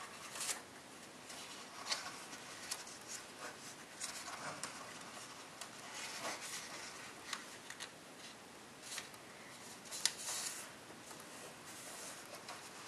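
Copper tissue foil paper rustling and crinkling in the hands as it is folded and creased, a run of short, irregular crisp crackles. The sharpest crackles come about half a second in, about two seconds in and about ten seconds in.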